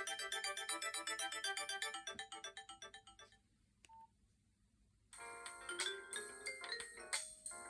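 Nokia 6136 preloaded polyphonic ringtones playing through the phone's speaker. A melody of rapid repeating notes dies away about three seconds in, a short single beep follows about a second later, and a different ringtone starts abruptly about five seconds in.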